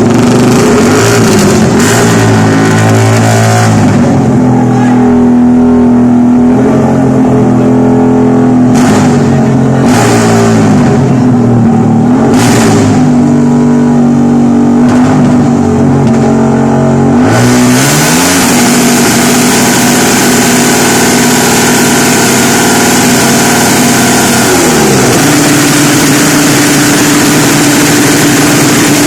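Motorcycle engine revving hard through a loud aftermarket exhaust pipe, blipped up and down again and again, then held at a steady rev with a rising pitch near the end.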